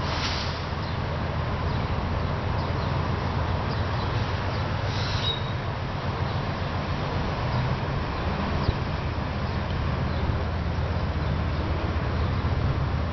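Steady low rumble of road traffic mixed with a distant diesel locomotive approaching, under an even hiss. A brief high chirp about five seconds in.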